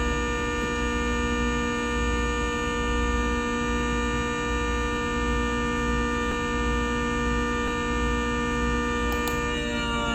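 ACA Hurricane warning siren sounding the steady alert signal: one loud, constant tone with many overtones, which begins to wind down in pitch near the end.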